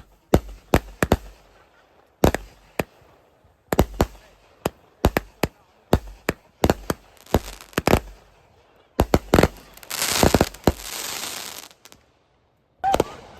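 Fireworks going off: a long run of sharp firecracker bangs at uneven intervals, then a couple of seconds of dense crackling hiss, a short lull, and one more bang near the end.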